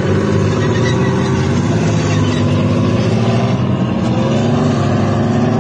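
A military tank's engine running steadily while the tank is on the move.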